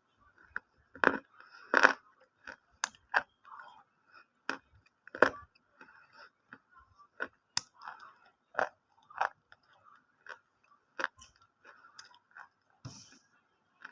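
Someone chewing crunchy food close to the microphone: irregular sharp crunches, a few a second.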